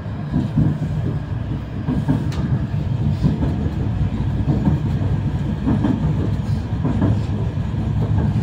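Low-floor 71-932 Nevsky tram running along its track, heard from inside the passenger cabin: a steady low rumble of wheels and running gear, with a few short clicks and knocks.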